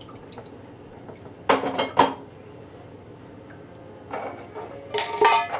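Small metal mesh strainer knocked against the rim of a stainless steel saucepan: two sharp metal clinks about half a second apart, then a quick run of clinks with a brief ring near the end.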